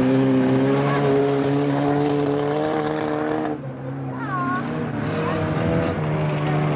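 Grass track race cars' engines running at high revs, a steady drone that dips briefly about halfway through and then picks up again.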